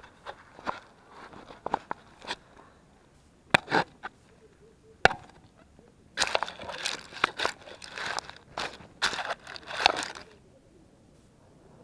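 Handling noise on a small action camera: irregular knocks, with louder ones around four and five seconds in, then a dense stretch of scraping and rustling from about six to ten seconds in as it is moved about and set down in the grass.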